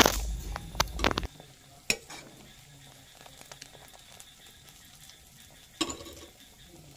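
Gravy sizzling and bubbling in a frying pan on the stove. There is a cluster of sharp clicks in the first second, and a single knock about two seconds in and again near the end.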